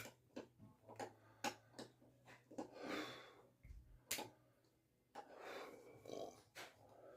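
Mostly quiet, with faint breaths and scattered small clicks.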